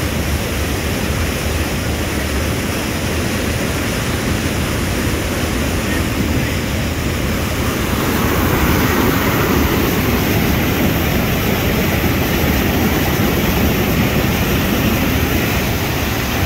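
River in flash flood: muddy whitewater rushing over rock rapids and a waterfall, a steady loud roar that grows a little louder about halfway through.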